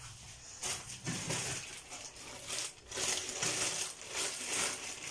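Crinkling and rustling of a thermal hair cap being handled and pulled on over foil-wrapped hair, in irregular bursts starting about half a second in.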